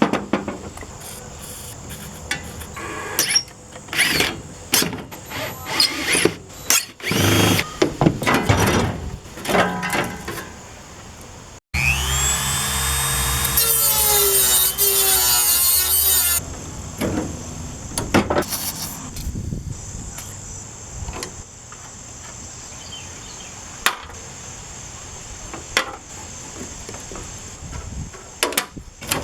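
Clanks, scrapes and rattles of metal parts being pulled apart by hand while an air conditioner is stripped for scrap. About halfway through, a power tool such as a drill runs for about four seconds, its whine rising and then holding. After that come scattered clicks and knocks.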